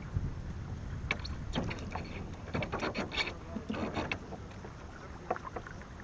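Water splashing and knocking around a war canoe, over a steady low rumble. A busy run of splashes and knocks starts about a second in and eases off after about four seconds.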